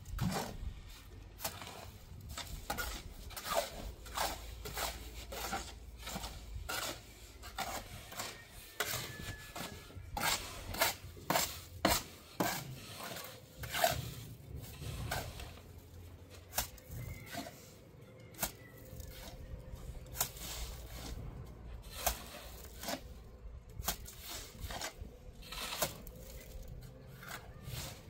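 Irregular clinks, knocks and scrapes of hard objects being worked: dozens of short strokes, sometimes several a second, with rubbing and scraping between them.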